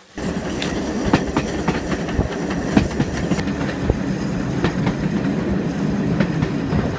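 Train running along the track, heard from inside the carriage: a steady rumble with irregular clicks and knocks from the wheels.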